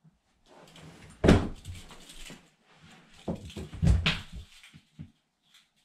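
Knocks and thumps of a bedroom door and people moving about: a sharp bang about a second in, then a run of thuds and scuffling about three to four seconds in.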